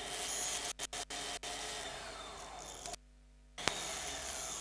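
Dental straight handpiece running with its rotary tool grinding a cast copper-alloy piece: a steady whirring, grinding hiss. The sound cuts out briefly several times in the first second and a half, and for about half a second near the end.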